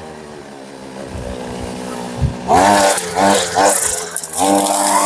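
Two-stroke brushcutter with a chainsaw-chain trimmer head running at low speed, then revved sharply about halfway through. It gives two short throttle blips, then holds at full speed near the end, with a loud hiss of the spinning head cutting grass.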